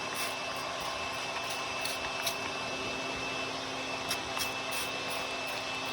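Small electric air-mattress inflator running steadily with a constant whine, blowing air into the car's exhaust to pressurise it for a leak test. A few short hisses of a trigger spray bottle squirting soapy water are heard over it.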